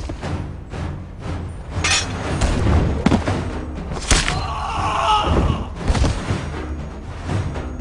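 Dramatic film music with heavy thuds and sharp impact hits over it, the sound effects of a battle scene.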